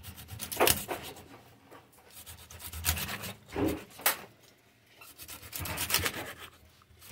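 Large kitchen knife cutting crosswise through a striped bass's body and backbone into steaks on a plastic cutting board: several separate cutting strokes, the sharpest about four seconds in.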